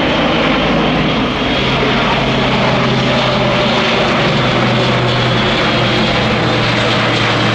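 Airbus A400M's four TP400 turboprop engines with eight-bladed propellers droning steadily as the aircraft flies past, with a deep propeller hum whose pitch drops slightly about four seconds in.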